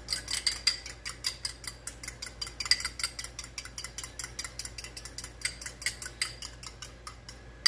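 Egg wash being beaten in a bowl: a utensil clicks against the bowl in a fast steady rhythm, about six or seven strokes a second, stopping just before the end.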